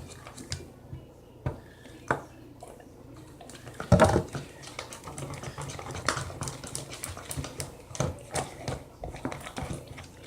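Scattered clicks and taps of a utensil against a bowl while slime ingredients are mixed, with one louder short sound about four seconds in.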